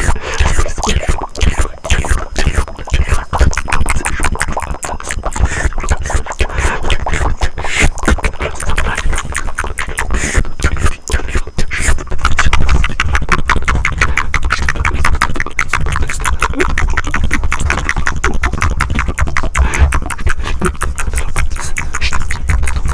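Close-miked ASMR mouth sounds: a dense run of rapid wet clicks and pops that settles into a faster, more even flutter from about halfway.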